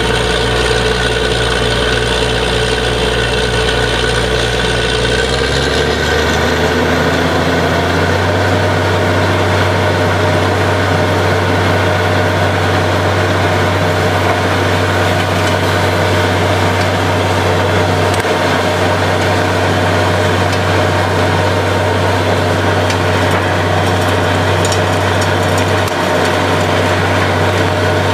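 Borewell drilling rig's engine running steadily, picking up speed about five to eight seconds in and then holding at the higher speed.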